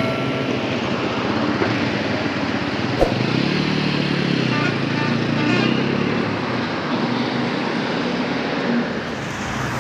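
Motorcycle engine running on a highway amid a steady rush of road traffic, its hum louder for a few seconds in the middle. A sharp click about three seconds in.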